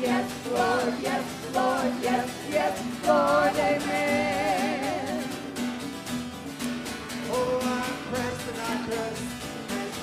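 Live worship music: a group of singers holding long, wavering notes with vibrato over instrumental accompaniment with a steady beat.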